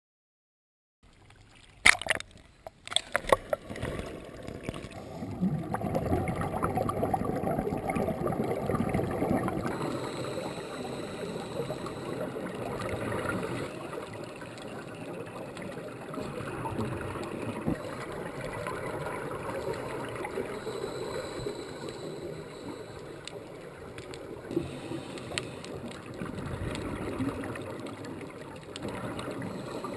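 Underwater noise picked up through a GoPro's waterproof housing: scuba divers' regulator exhaust bubbles gurgling in an uneven low rush. A few sharp clicks sound about two seconds in.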